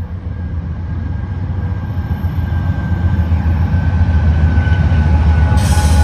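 Norfolk Southern train approaching at speed: a low rumble that grows steadily louder, with a rush of noise joining in near the end.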